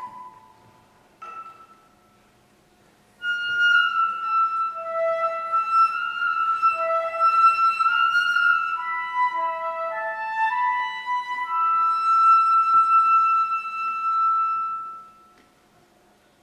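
Koto and flute duet: a few plucked koto notes ring and die away, then after a brief pause the flute plays a slow phrase of long held notes that fades out near the end.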